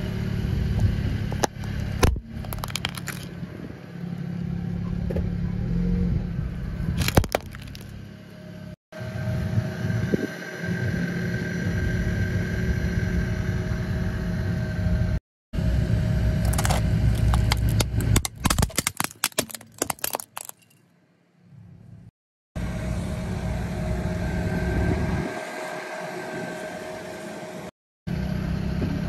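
A car engine running at low speed as the car creeps forward, with sharp crackling and snapping several times as its tyre crushes a plastic body-cream tin and a plastic toy. The sound breaks off abruptly and starts again several times.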